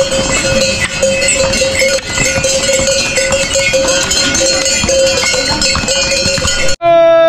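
Many bells on passing mules ring and clang continuously, a steady jangle. Near the end it cuts off suddenly into a loud held note.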